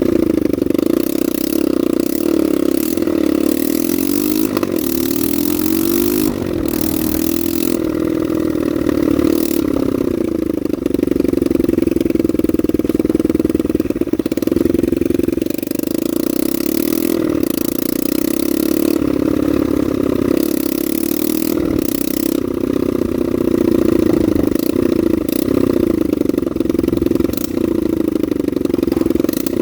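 Honda NSF100's single-cylinder four-stroke engine running, its pitch rising and falling repeatedly with the throttle.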